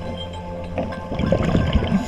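Background music with a burst of loud underwater bubbling and gurgling starting about a second in.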